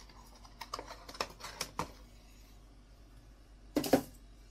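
Trading cards and cardboard card boxes handled with gloved hands: several light clicks and taps in the first two seconds, then one louder short knock near the end.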